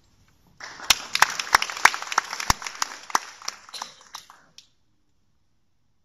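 Audience applause: a spread of clapping with several loud, sharp claps close by, thinning out and stopping abruptly about four and a half seconds in.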